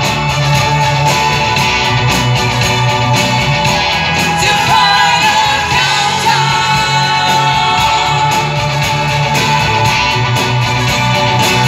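Loud rock music from a band, with a singer over guitar and a steady bass line.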